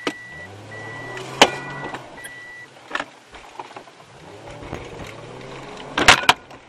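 A bat striking the car: one sharp blow about a second and a half in, a smaller knock around three seconds, and a quick cluster of two or three hard blows near the end, the loudest, as the bat hits the windscreen. The car's engine hums and rises underneath, and a warning chime beeps evenly until about a third of the way in.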